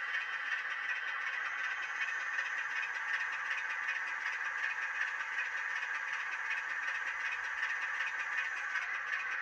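Recorded Class 25 diesel engine sound running steadily, played by an ESU LokSound 5 Next18 DCC sound decoder through a 9 x 25 mm sugar-cube speaker in an N gauge Farish model. The small speaker gives it a thin, bass-less sound.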